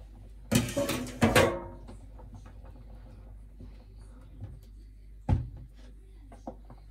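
A metal saucepan clatters and rings briefly as it is set down on a glass hob, about half a second to a second and a half in. Quieter scraping and tapping of a spoon stirring the fruit follows, with a single sharp knock about five seconds in.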